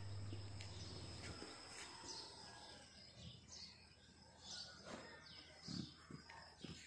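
Faint chirping of small birds: short, high, falling notes, repeated every second or so, with a few soft low thuds near the end.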